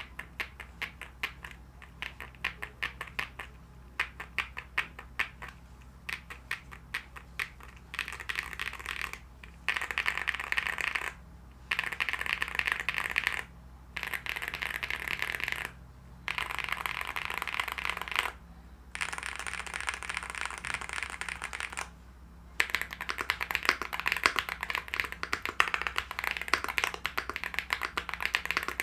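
Rainy75 Pro mechanical keyboard with stock JWK Snow Ink linear switches being typed on: separate keystrokes at first, then several bursts of fast typing a couple of seconds each with short pauses between, ending in steady fast typing.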